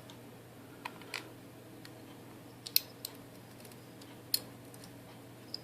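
Six or so sharp, irregular little clicks and taps of small metal lock parts, pins and springs, being handled and pushed out while a Mul-T-Lock Junior dimple lock cylinder is taken apart.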